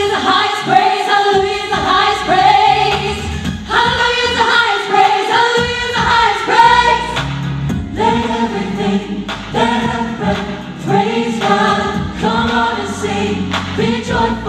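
Gospel choir singing with band accompaniment: many voices holding sung notes over a bass line.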